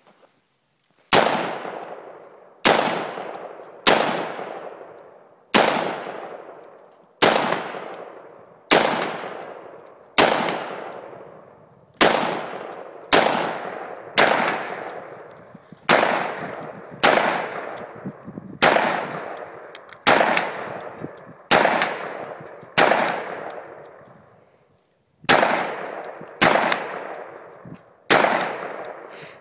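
AR-15 rifle fired semi-automatically, about nineteen single shots at a steady pace of roughly one every one and a half seconds, with a short pause before the last three. Each shot rings out with a long echoing tail.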